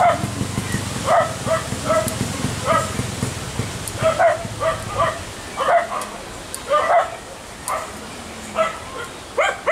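A dog barking repeatedly: short, high-pitched barks every half second to a second, some coming in quick pairs.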